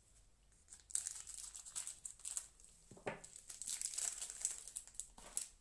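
Foil wrapper of a trading-card booster pack crinkling as it is handled, in a run of short rustles starting about a second in.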